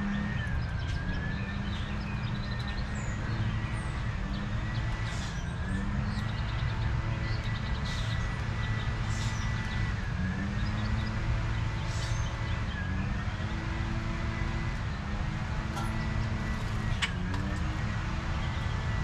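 Steady low mechanical hum with a held whine that dips in pitch every few seconds, and a few short high bird chirps about five to twelve seconds in.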